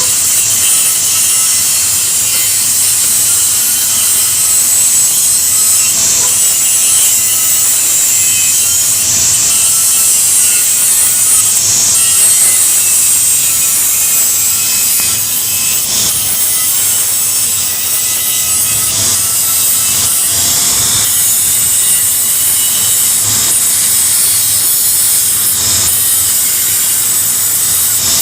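Electric arc welding: the welding arc hissing and crackling steadily and without a break.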